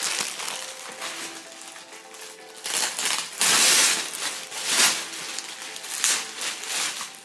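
Thin plastic wrapping rustling and crinkling in repeated bursts as a tote bag is pulled out of it, loudest a little past halfway. Soft background music plays under it.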